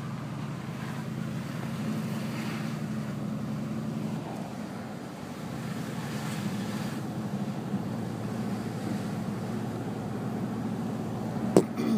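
Car engine and road noise heard from inside a moving car: a steady low hum, with one sharp click near the end.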